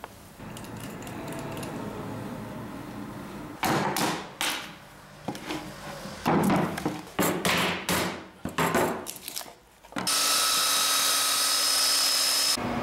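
A wooden stick stirring resin in a plastic cup, then irregular knocking and scraping strokes of hand work on wood. About ten seconds in, a portable belt sander starts running steadily on a walnut box and cuts off abruptly near the end.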